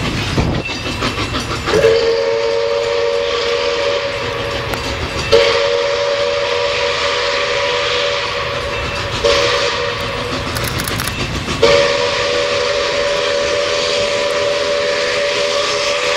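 A train whistle sounding a steady chord in long blasts, struck anew about four times, over a constant running noise from the train.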